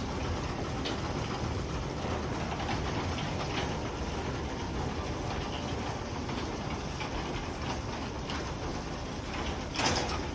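Genie ISD990 screw-drive garage door opener running, its motor and screw rail carrying the door along the track during the test cycles after a new logic board is fitted, as the opener learns its travel. A short louder burst near the end.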